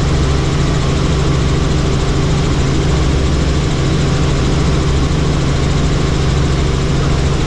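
Helicopter engine and rotor running steadily: a constant low hum under an even rushing noise.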